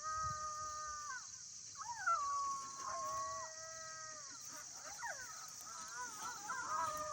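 Electronic predator game caller playing a recorded animal call through its speaker: long wavering wails that hold and slide in pitch, several overlapping, with short breaks between them, over a steady high hiss.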